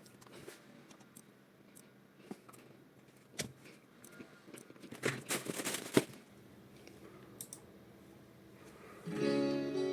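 Scattered clicks and rustling from objects being handled, busiest about five to six seconds in; near the end acoustic guitar music starts.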